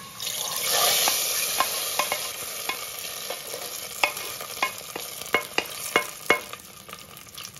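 Hot oil tempering of fried garlic, dried red chillies and curry leaves poured into tamarind dal, sizzling. The sizzle is strongest about a second in and fades over the following seconds, with scattered sharp clicks.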